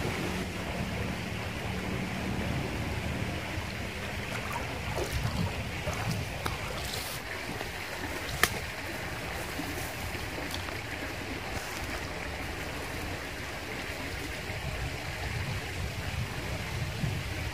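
Steady rushing of a small river flowing over rocks. A single sharp click stands out about eight seconds in, with a few fainter clicks before it.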